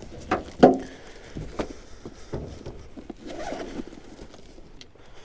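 Gear being rummaged and handled in a boat's storage compartment and bag: scattered knocks and clicks, with one sharper knock under a second in.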